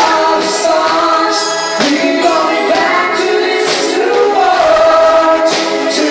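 A live band playing a pop song, with a female and a male singer singing a duet over electric guitars, with cymbal crashes every couple of seconds.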